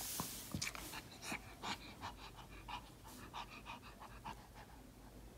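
A Maltese dog panting in quick, short breaths, about three or four a second, close to the microphone, after a brief rustle of fur at the start.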